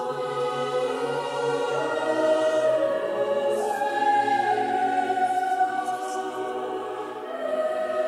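Mixed choir of men's and women's voices singing unaccompanied in slow, sustained chords. The consonants of the words come through as soft hisses a few times.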